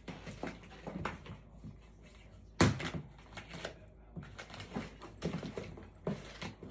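A gift box being handled and opened by hand: scattered rustling and light knocks, with one sharper, louder knock a little over two and a half seconds in.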